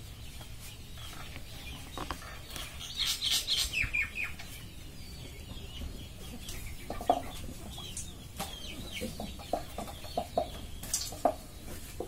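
Chickens clucking in short repeated calls, with a burst of higher, falling calls about three seconds in.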